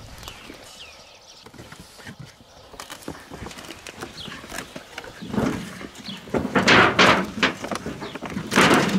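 Old tires and boards being shifted in a junk pile: irregular scraping and knocking that gets much louder from about halfway through.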